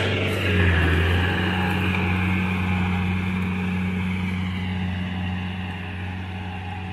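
Iseki NT540F tractor's diesel engine running steadily under load, pulling a rotary tiller through a flooded rice paddy. The steady hum grows gradually fainter as the tractor moves away.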